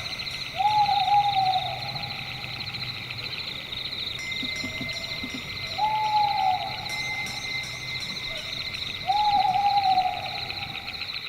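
An owl hooting three times, each a drawn-out hoot of about a second that rises quickly then holds and falls slightly. Underneath runs a steady, fast-pulsing chirring of night insects.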